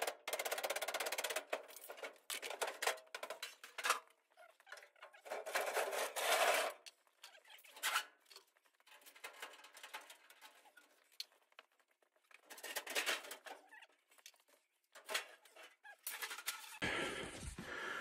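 Intermittent knocking, clattering and scraping of hands-on work, in short bursts of a second or two separated by gaps.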